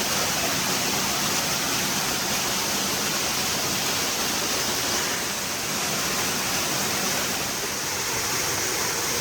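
Rushing water of a mountain creek, a steady hiss.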